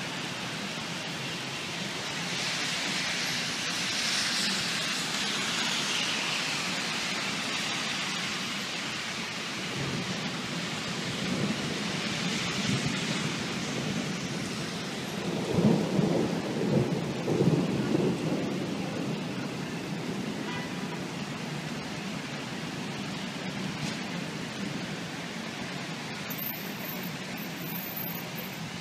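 Heavy rain falling steadily during a thunderstorm, with thunder rolling in from about ten seconds in and rumbling loudest in several swells a little past halfway.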